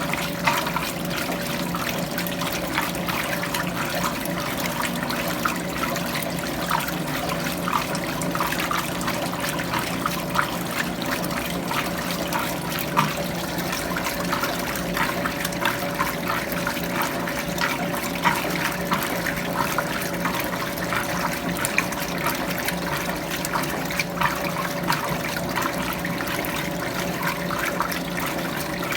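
Electrolux Prosdócimo washing machine in its rinse cycle: water splashing and sloshing in the tub, with a steady hum underneath.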